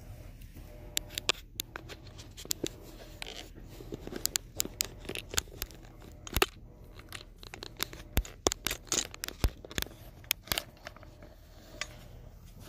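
Handling noise from a phone being propped up on the floor: irregular sharp clicks, scrapes and rustles as fabric and fingers rub against the microphone.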